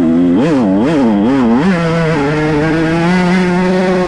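Dirt bike engine close by, its throttle blipped four times in quick succession, then held at a steady rev.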